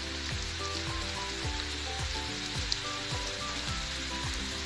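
Hot oil sizzling steadily under a pan of fried banana slices, with background music playing over it: short notes and a soft beat of about two thumps a second.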